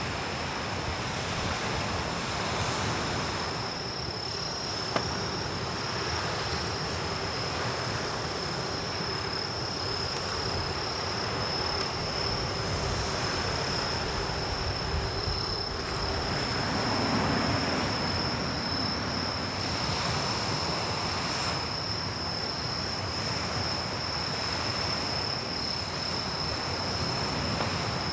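Insects trilling in one steady high note over a constant rushing wash of surf and wind. The wash swells for a couple of seconds past the middle, and a single sharp click comes about five seconds in.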